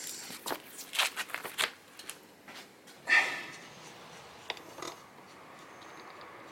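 Irregular clicks and clinks of hand tools and metal parts, with a short scrape about three seconds in, as a heat-wrapped Tomei exhaust manifold is fitted back in place.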